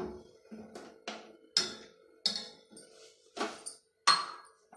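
Steel ladle knocking against the sides of a stainless steel saucepan while stirring milk, a string of irregular clinks roughly every half second.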